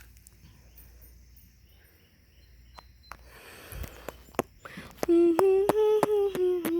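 Faint outdoor background with a few scattered clicks. About five seconds in, a loud steady hum-like tone holds for about two seconds, wavering slightly in pitch, with about four sharp ticks a second running through it.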